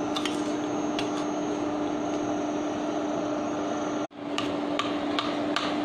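Induction cooktop running under a pot of water, its cooling fan making a steady hum with one constant tone. The sound drops out briefly about four seconds in, then the hum returns with scattered light ticks.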